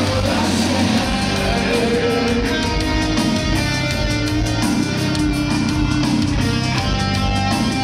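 A rock band playing loud heavy metal live: electric guitars, bass and drums, with a steady drum beat.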